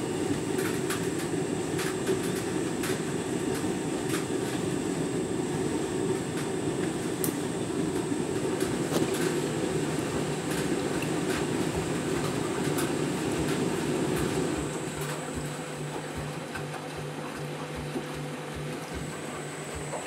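Candy Grand'O Vita washing machine drum tumbling laundry through rinse water, a steady sloshing and churning with many small splashes and clicks. About fifteen seconds in the sloshing drops away, leaving a quieter, steady low hum.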